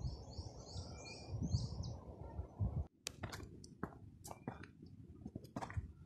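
A songbird chirps a quick run of high notes in the first two seconds over a low rumble. Just before halfway the sound cuts out for a moment, then gives way to a series of sharp crunches and clicks of footsteps on a stony dirt trail.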